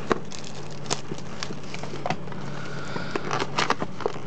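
Plastic wrapping and cardboard of a booster box being handled and opened: scattered crackles and light taps, with a short rustle about three seconds in.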